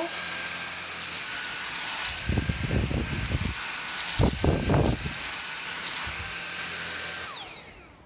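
Dyson cordless stick vacuum running with a steady high-pitched motor whine as its nozzle works over a fabric cat bed, with a few low knocks of the head against the bed in the middle. Near the end the whine falls in pitch and fades as the motor winds down.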